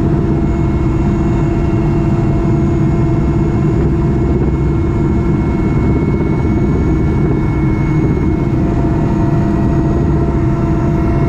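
A helicopter's engine and rotors heard from inside the cabin: a loud, steady drone with a few steady whining tones over it.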